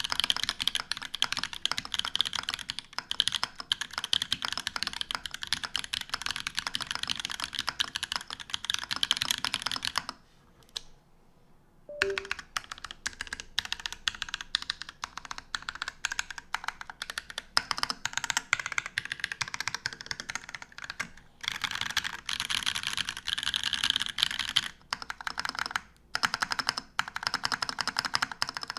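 Fast typing on a TGR Alice mechanical keyboard with Holy Panda tactile switches, a copper plate, a polycarbonate case and GMK keycaps: a dense run of key clacks, with a pause of about two seconds a third of the way in and a few brief gaps near the end.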